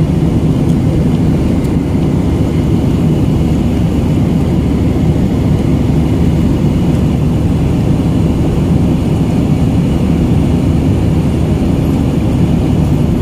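Airliner cabin noise in flight: the steady low rumble of the engines and airflow heard inside the passenger cabin, with a faint steady high whine above it.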